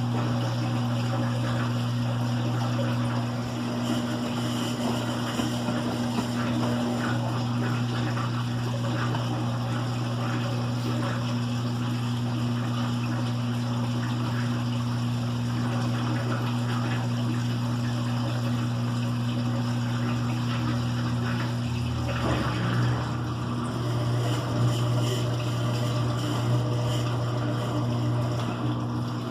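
Electrolux LE05 washing machine running, its pump or motor giving a steady hum under the sound of moving water. About two-thirds of the way through the low hum shifts and a few heavier bumps follow.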